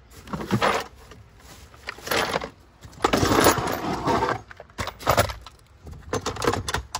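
Metal hand tools, sockets and ratchets, clattering and clinking in plastic toolboxes as someone rummages through them, in a string of irregular bursts, the loudest about three seconds in.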